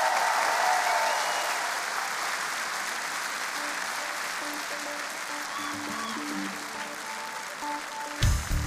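A studio audience applauds loudly at first, and the applause slowly fades as a live band begins a song intro with soft, evenly repeated notes. Just before the end, drums and bass come in heavily.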